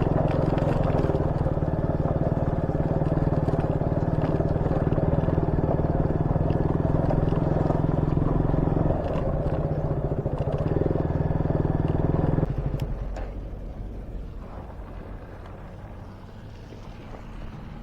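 Motorcycle engine running steadily with a fast, even pulse while under way. About twelve seconds in it drops suddenly to a much quieter low running sound.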